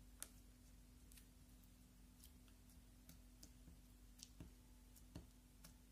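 Clear slime being kneaded, pinched and poked by fingers, giving faint, irregular sticky clicks and pops, over a low steady hum.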